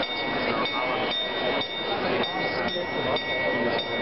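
Small bell of the Prague astronomical clock being struck over and over by its Death automaton during the hourly procession of the apostles, about two strokes a second, its ringing held between strokes. Crowd chatter underneath.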